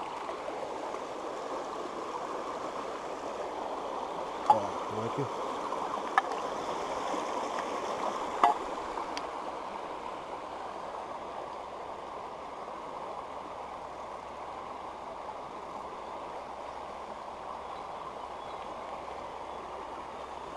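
Shallow creek running over stones, a steady rush of water, with three sharp clicks in the first half.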